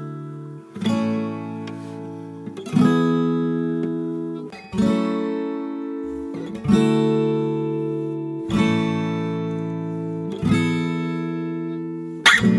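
Background music on acoustic guitar: a chord strummed about every two seconds, each left to ring out and fade.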